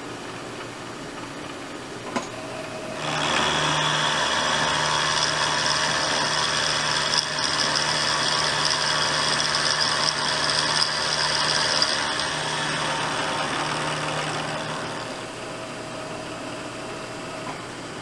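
Milling machine with a Niagara end mill cutting into a metal workpiece. The spindle hums steadily, then about three seconds in the cutter bites and a loud, steady cutting noise with high ringing tones sets in, easing back to the spindle hum about three seconds before the end.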